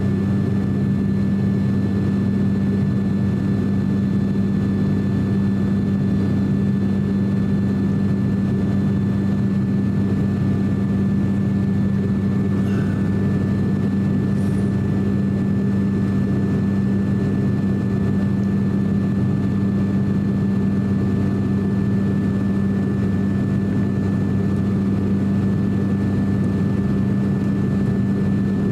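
Steady drone of an ATR 42-600's Pratt & Whitney PW127 turboprops and six-bladed propellers, heard inside the passenger cabin: a strong even hum with fainter steady whining tones above it.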